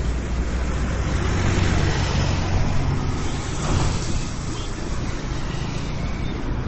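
Road traffic noise: passing vehicles' engines and tyres. A heavy vehicle's low rumble fades in the first second or so.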